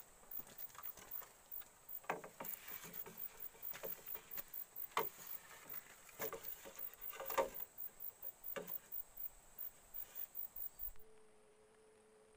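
Insects chirping in a rapid, even pulse of about five a second over a steady high whine, with scattered knocks and clatters of bamboo poles and crunching steps on river gravel as poles are stood up and lashed together. About eleven seconds in this cuts off, leaving a faint steady hum.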